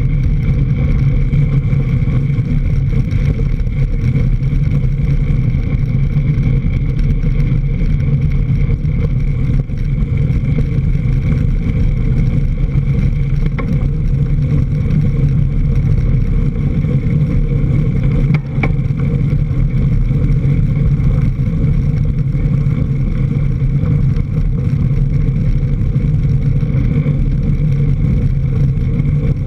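Steady low rumble of wind and tyre noise from a camera mounted low on a mountain bike's fork, riding fast over a leaf-covered dirt trail, with a single sharp knock about eighteen seconds in.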